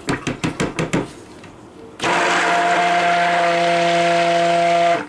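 Stick blender running in a stainless steel pot of cold process soap batter, a steady motor hum that starts about two seconds in and cuts off sharply just before the end. In the first second there are a few short knocks.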